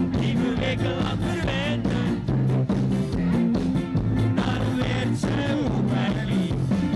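Live pop-rock band through a PA system: drums keeping a steady beat, electric bass and guitars, keyboard, and a male singer singing into a microphone.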